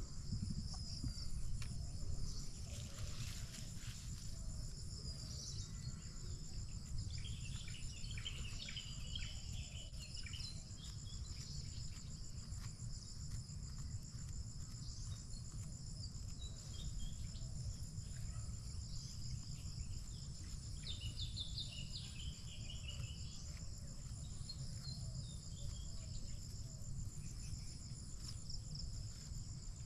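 A steady, high-pitched chorus of insects trilling, cricket-like, with scattered bird chirps now and then over a low rumble.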